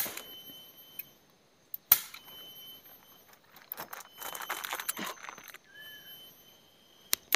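Tarp rustling and crinkling as it is pulled and handled while a shelter is pitched, with a few sharp knocks or clicks, the loudest about two seconds in, and a denser stretch of crackly rustling about four to five seconds in.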